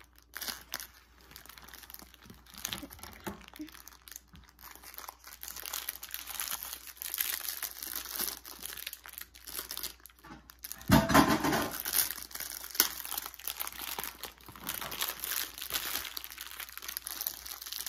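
Packaging of a fidget toy crinkling and rustling in the hands as it is opened, in an irregular run of crackles, with a louder rustle about eleven seconds in.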